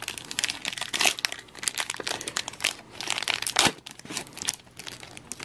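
Foil wrapper of a Pokémon card booster pack crinkling and tearing as it is opened by hand, a dense run of irregular crackles and rustles.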